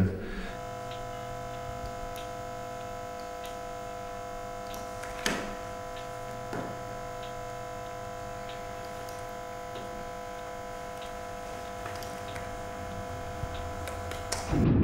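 Steady electronic drone of several held tones that do not change, with a short knock about five seconds in.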